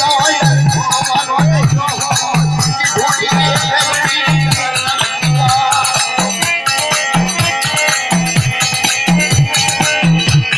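Music with a steady beat: a low bass note repeats about twice a second under a busy upper layer of percussion and instruments.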